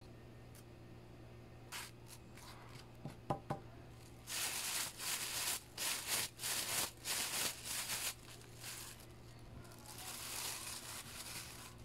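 Plastic bag of seasoned flour crinkling and rustling in quick, loud bursts for about four seconds as it is shaken and squeezed by hand, after a couple of light clinks from a metal spoon. Softer rustling of the bag follows near the end.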